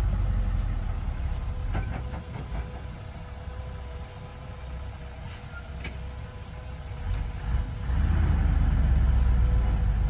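Dump truck's diesel engine running as the tipped bed unloads soil, revving louder near the start and again from about eight seconds in. A steady whine runs beneath it, and there are a few sharp knocks.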